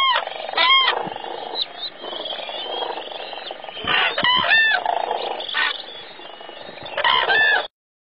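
A flock of common cranes calling: loud bugling calls in short bursts at the start, about four seconds in and again near the end, over a steady chorus of more distant cranes. The sound cuts off abruptly just before the end.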